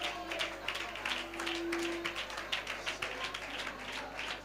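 Congregation clapping in a quick, uneven rhythm over soft worship music, with one held note about a second in.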